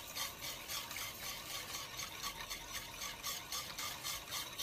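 Wire whisk stirring a thick ube halaya mixture in a stainless steel pan, scraping against the metal in quick, regular strokes.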